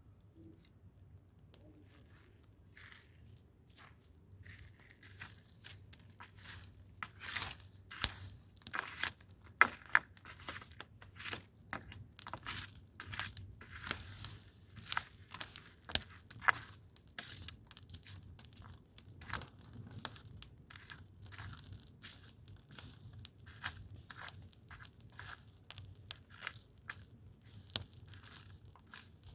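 Dry leaves and twigs crackling and snapping in quick, irregular cracks, some much louder than the rest, beginning a few seconds in.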